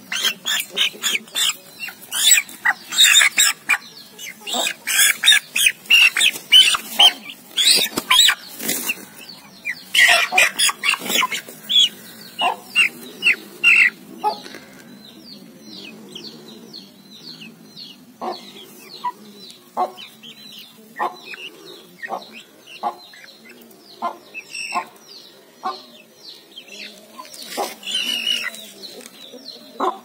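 Young Aseel hens pecking rice from a steel bowl and clucking: rapid sharp taps that come thickest for about the first fourteen seconds, then thin out to scattered taps.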